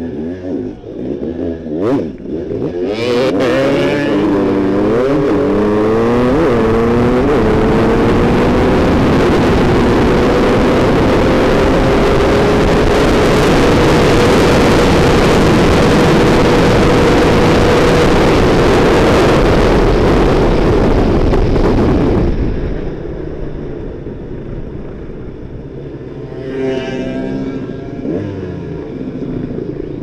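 Enduro motorcycle engine revving up through the gears, then held at steady high revs under a loud rushing noise; a little past two-thirds through, the rush cuts off suddenly and the engine drops back.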